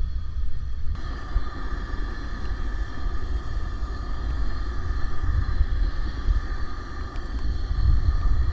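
Propane camp stove burner running under a pot of water at a hard boil: a loud, steady low rumble.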